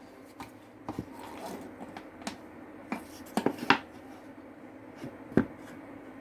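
Scattered light clicks and knocks, a quick cluster of them about three and a half seconds in and one more near the end, over a steady low hum.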